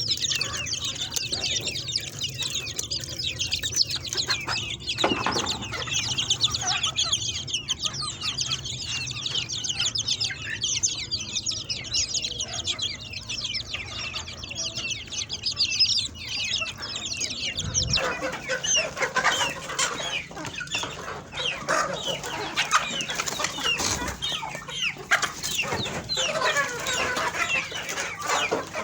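A flock of chickens clucking and chirping together, many overlapping calls. A steady low hum sits under them for the first half and drops away about two-thirds of the way through.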